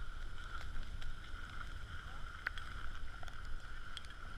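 Wind rumbling on the microphone of a skier's moving camera while skiing down a piste, with a steady faint high whistle over it and a few small ticks.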